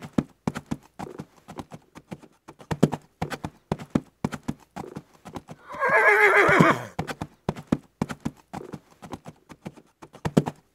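Galloping horse hoof beats, a fast clip-clop rhythm in quick groups, with one wavering whinny about six seconds in.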